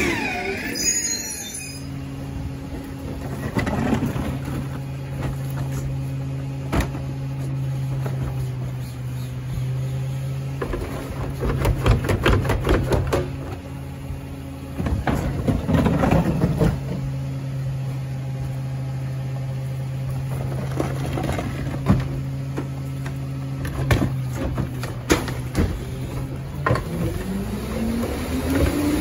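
Residential garbage truck's diesel engine running at a steady hum, with sharp knocks and two stretches of clatter and banging about halfway through, then the engine revving up near the end.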